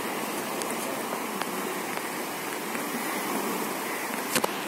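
Steady rush of low waves breaking on a sandy beach, with two sharp clicks about four seconds in.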